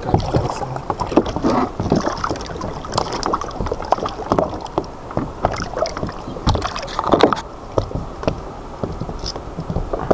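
Water splashing and sloshing as a hooked catfish thrashes at the side of a plastic kayak. Irregular knocks and clicks run through it.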